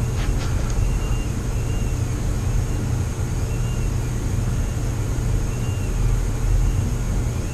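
Steady low mechanical hum of background room noise, with faint short high chirps recurring about once a second.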